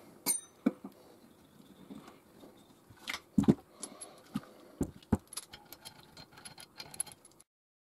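Small metal parts of a Zenoah G320RC model engine clinking and clicking in the hands, with a few soft knocks as parts are set down on a plastic sheet. The sound cuts off abruptly near the end.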